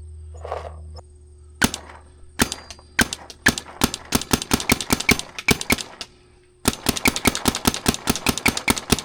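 Planet Eclipse EMEK paintball marker fitted with an HK Army LAZR barrel, firing paintballs. A few single shots come first, then quickening strings of shots, about six a second, with a short break around six seconds in.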